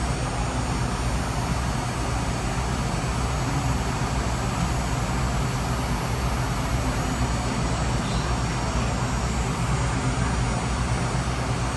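Ryobi cordless hot air gun running steadily, its fan blowing a constant rush of air with a low hum while it shrinks heat-shrink tubing over a soldered wire joint.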